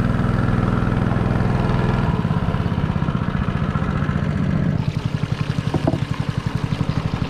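Boat's outboard motor running steadily, its pulsing beat growing more distinct about five seconds in.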